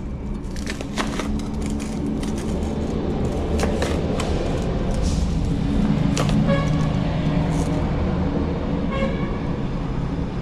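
Steady low engine-like rumble with scattered clicks, and two short car-horn toots, about six and a half seconds in and again near nine seconds.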